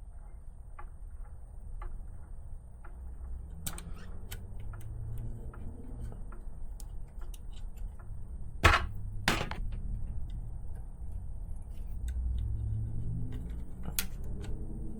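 Small plastic and metal RC car suspension parts being handled and fitted by hand, giving scattered light clicks and taps, with two sharper clicks about nine seconds in.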